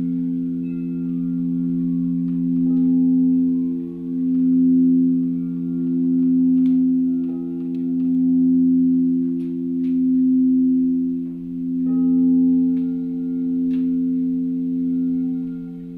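Several singing bowls ringing together in a held chord of low, steady tones that swell and fade in slow waves about every two seconds.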